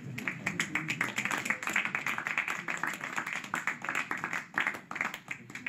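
Applause from a group of people: many fast, overlapping hand claps that thin out near the end.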